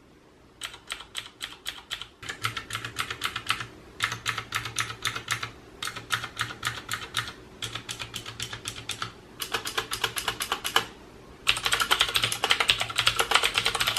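Fast typing on a mechanical keyboard with clicky blue switches, each keystroke a sharp click, in bursts of a second or two with short pauses. From about eleven and a half seconds in the typing becomes louder and denser.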